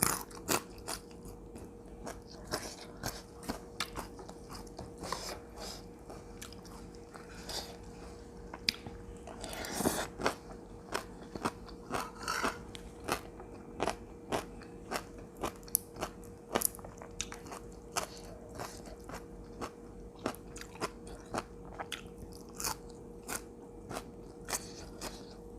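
A person chewing crunchy food close to the microphone: a steady run of crunches and wet mouth clicks, several a second, over a faint steady hum.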